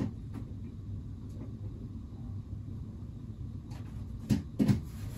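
Low, steady room hum with a few faint clicks, then two dull knocks close together near the end: someone handling a prop and its parts.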